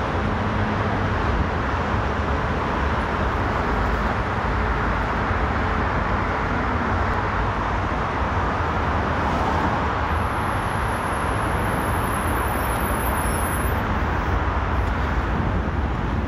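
Steady road traffic noise at a city street intersection: cars running and passing.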